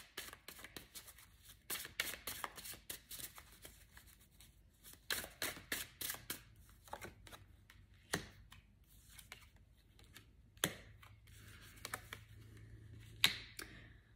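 Tarot cards being shuffled by hand and laid down on the table: a faint run of quick, irregular card flicks and taps, with a few sharper single taps.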